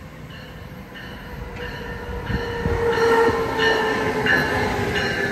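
Amtrak ACS-64 electric locomotive and its passenger cars passing close by at speed. The sound grows louder about two to three seconds in as the locomotive comes alongside, with a steady whine over the rush of the train.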